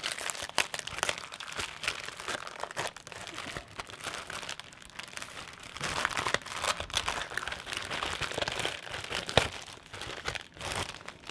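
A thin clear plastic bag crinkling and rustling as it is handled and torn open by hand, along with the paper packet inside, in a dense irregular crackle; one sharp snap comes about nine seconds in.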